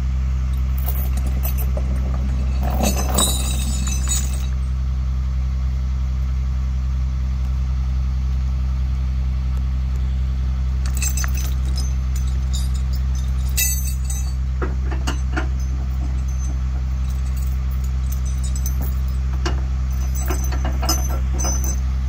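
Rollback tow truck's engine idling steadily, with the bed tilted down. The winch chain and hook clink and rattle as they are handled, about 3 s in, again from about 11 to 14 s, and near the end.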